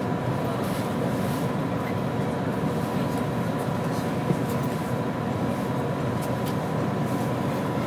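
Cabin noise inside an HC85 hybrid diesel-electric train rolling slowly into a station. A steady low rumble runs under a thin, steady tone, with a few faint ticks.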